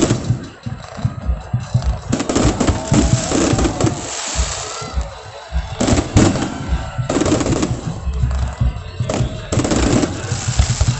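Aerial fireworks going off in rapid volleys, many sharp bangs and crackles close together, with music playing underneath.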